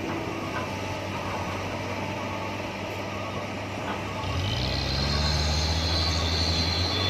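Heavy diesel engine running steadily from an excavator or dump truck, revving up about four seconds in and adding a higher whine.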